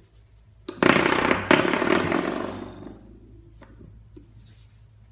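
Spring door stop twanging as a puppy flicks it, twice about a second in: a loud buzzy boing that rings out and fades over about a second and a half, followed by a couple of faint taps.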